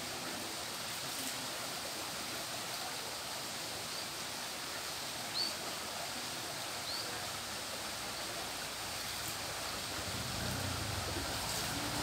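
Steady hiss of running water, with a few short high chirps in the middle and a low rumble coming in near the end.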